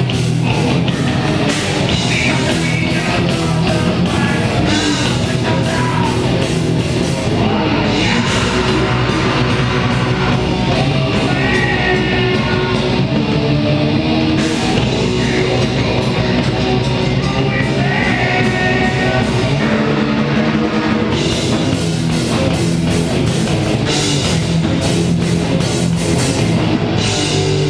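Live heavy metal band playing loud and without a break: distorted electric guitars, bass guitar and drum kit, with a singer at the microphone.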